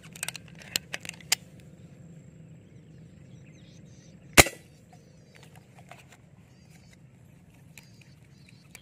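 A homemade rubber-band fishing gun fired once with a sharp snap about four and a half seconds in, the loudest sound here, after a few small clicks of handling in the first second and a half.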